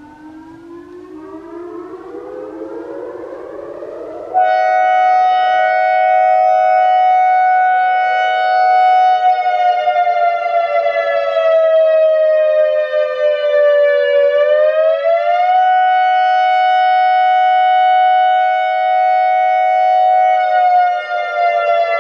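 ACA Alertronic AR-1600 electronic outdoor warning siren sounding a wail. It rises in pitch for about four seconds, then jumps much louder and holds a steady tone. It falls slowly, swings back up, holds again, and starts falling near the end.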